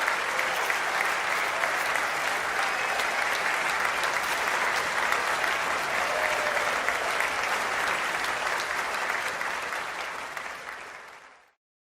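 Large crowd applauding in a steady, dense wash of clapping, fading out to silence near the end.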